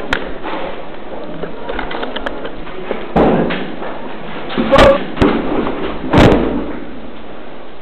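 A few sudden loud bangs and thuds: the first about three seconds in, then three more close together, the loudest near the middle and just after, over a steady background hiss.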